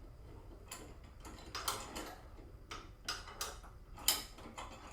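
A clamp being repositioned and tightened on the workpiece: a string of irregular mechanical clicks and knocks.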